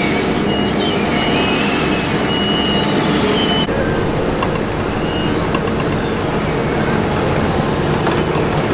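Heavy diesel road-works machinery and trucks running at an asphalt paving site, a steady loud din that changes abruptly about three and a half seconds in.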